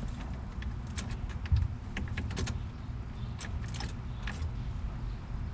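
Light metallic clicks and taps in irregular clusters, as a key and the ignition lock cylinder of a 1995 Chevy Impala are worked by hand, over a steady low rumble.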